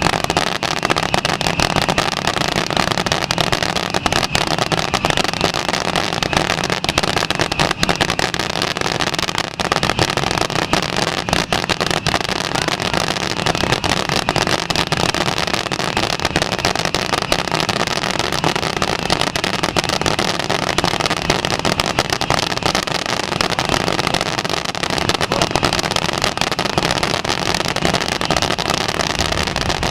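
Massed fireworks barrage: many ground-launched fountains and comets firing at once, with crackling stars, blending into one steady wall of noise dotted with countless small cracks and pops.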